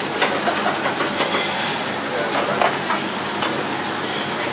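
Steady sizzling and hiss of a busy restaurant kitchen, with small clicks and clatter scattered throughout.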